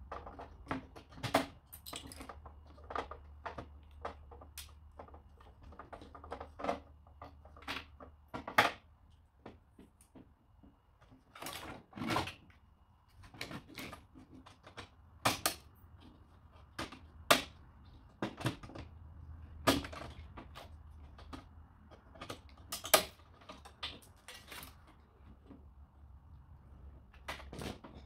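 Irregular clicks, clacks and knocks of plastic and metal photocopier parts being handled and worked loose by hand while the machine is taken apart, with a few louder knocks around the middle.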